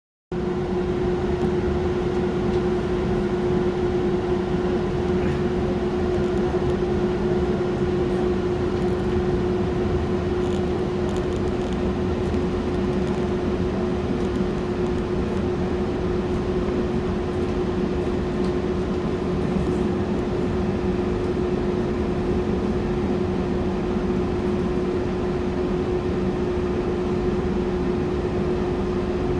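Steady hum with one constant tone inside a commuter train car that is standing still after an emergency stop: the car's onboard equipment running while the train waits.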